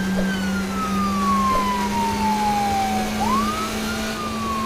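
Police-car siren wailing: a long slow fall in pitch, a quick rise about three seconds in, then falling again, over a steady low drone.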